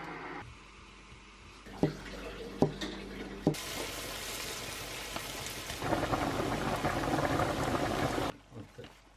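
Sliced button mushrooms and red onion sizzling in butter in a frying pan while being stirred. A few sharp knocks come in the first few seconds, then a loud, steady sizzle that cuts off suddenly near the end.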